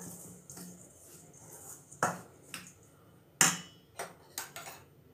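Steel spoon clinking and scraping against a stainless steel bowl while stirring a crumbly ground peanut and jaggery mixture. There are several sharp clinks, the loudest about three and a half seconds in.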